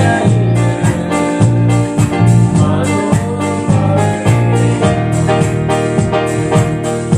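Worship music with keyboard and a steady beat, likely with singing.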